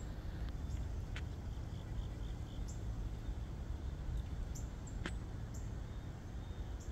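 Outdoor ambience: a steady low rumble of wind on the microphone, with a few sharp clicks, the loudest about five seconds in, and a short run of faint high chirps about two seconds in.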